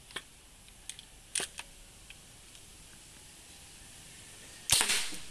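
Homemade wooden marble gun: a few light clicks of handling and cocking, then one loud, sharp shot near the end that dies away within about half a second.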